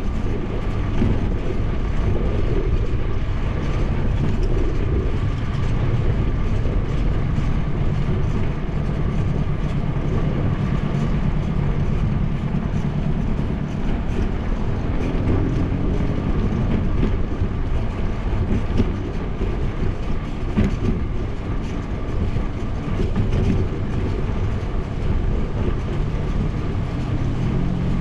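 Steady low rumble of wind buffeting the microphone of a bicycle-mounted action camera while riding, mixed with tyre noise on asphalt, with a faint steady whine above it.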